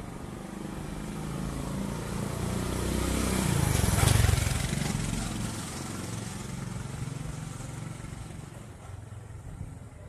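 A motor vehicle passing close by, its engine and tyre noise growing to a peak about four seconds in and then fading away.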